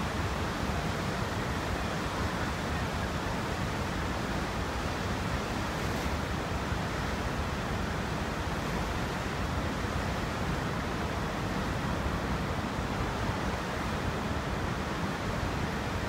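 Cumberland Falls in flood: a steady, unbroken rush of swollen river water pouring over the wide falls and churning in the pool below, high water after heavy rainfall.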